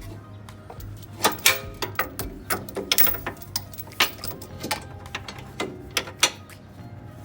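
Hand tools working a suspension bolt on the rear upper control arm: a run of irregular sharp metallic clicks and knocks, about a dozen, most of them after the first second, over a faint steady low hum.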